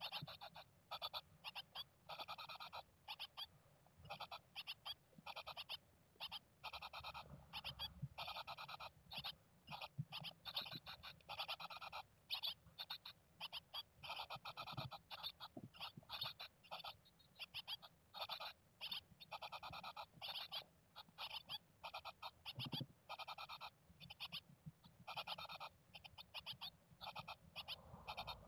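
Japanese tit nestlings inside the nest box giving a continuous stream of short, rapid chirping calls.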